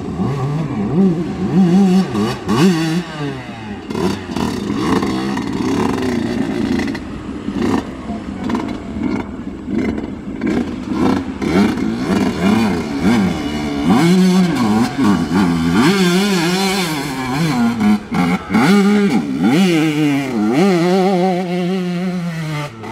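Yamaha YZ125 two-stroke dirt bike engine revving in repeated throttle bursts, its pitch rising and falling over and over under load on a slippery climb. Near the end it holds one high rev for a couple of seconds and then drops away.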